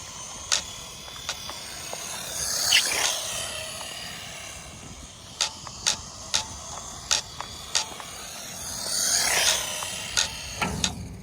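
Traxxas Mini E-Revo VXL RC truck's brushless electric motor and drivetrain whining as it makes laps, swelling twice in a rising-then-falling pitch as it speeds past. Sharp clicks come and go between the passes.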